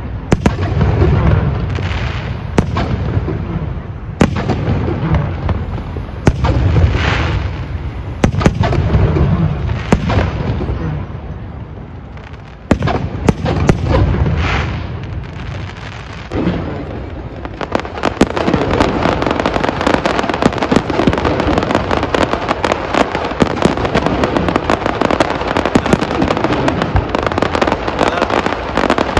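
Aerial fireworks going off: sharp bangs and deep booms of shells bursting every couple of seconds, then, from a little past halfway, a dense rapid crackling of many small bursts.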